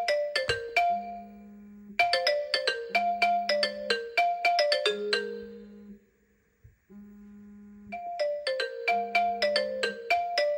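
Smartphone incoming-call ringtone from a messaging app: a quick, bright, marimba-like melodic phrase repeated again and again, with a brief pause about six seconds in. A low hum switches on and off between the phrases.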